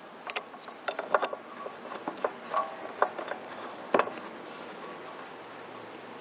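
Small metal parts and hand tools clicking and clinking in irregular taps, a few with a short ring, during work on a small-engine carburetor's fuel fitting. The taps thin out after about four and a half seconds.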